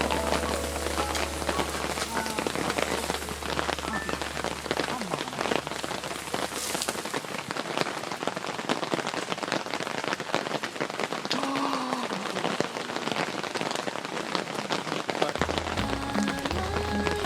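Steady rain falling on a surface, a dense hiss of countless small drop ticks.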